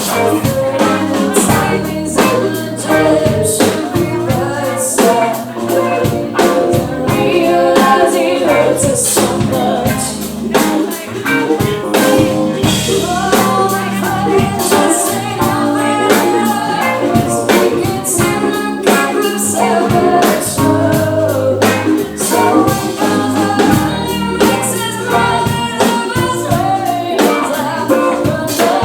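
A live band playing an R&B-pop song: sung vocals over drum kit and guitar.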